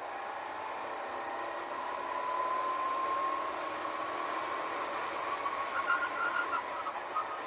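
Go-kart engine heard from the driver's seat, its pitch rising as the kart speeds up on a straight and then holding steady, under heavy wind hiss on the camera. A quick run of short chirps comes near the end as the kart turns into a bend.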